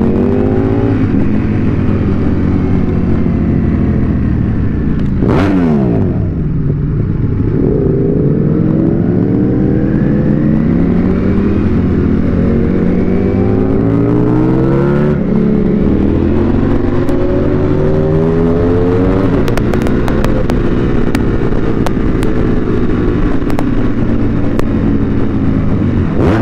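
Ducati Panigale V4 S superbike engine with a Termignoni exhaust, heard from the rider's seat, accelerating up through the gears: its pitch climbs again and again and drops back at each upshift. About five seconds in there is a fast falling sweep, and over the last several seconds a scatter of sharp clicks sits on top of the engine.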